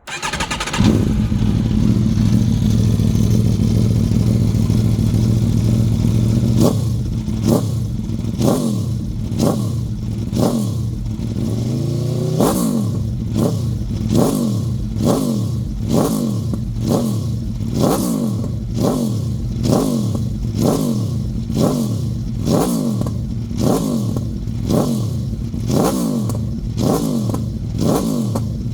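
Aprilia RSV4 Factory V4 superbike engine through an aftermarket exhaust, idling steadily for about six seconds, then revved in short, sharp blips of the throttle, roughly one a second, until the end.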